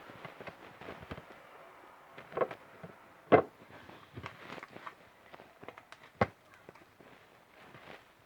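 Slime being squished, giving off irregular small clicks and wet-sounding pops, with three louder pops about two and a half, three and a half and six seconds in.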